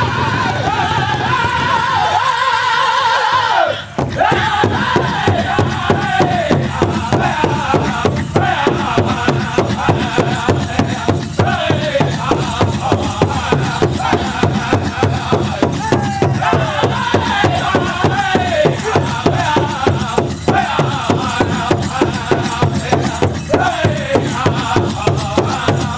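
Powwow drum group singing a chicken dance song: high-pitched men's voices in falling phrases over a fast, steady beat on a large powwow drum. The singing pauses briefly about four seconds in, then the drumbeat and singing go on.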